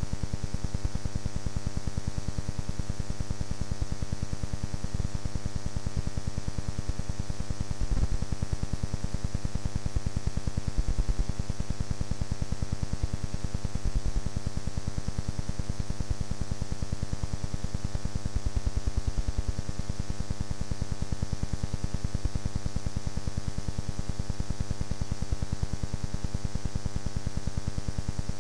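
Steady electrical hum with a buzz and a hiss of static, unchanging apart from a few faint knocks; no clear motorcycle or crowd sound stands out.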